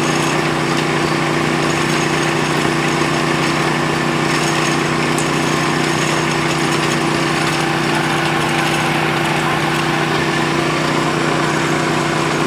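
Small engine of a well-drilling machine running steadily at a constant speed.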